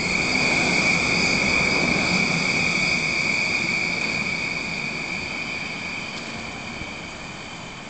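Hyundai Rotem urban maglev train passing close and running away along its guideway: a steady high-pitched whine over a softer rushing noise, loudest about a second in and fading steadily after that.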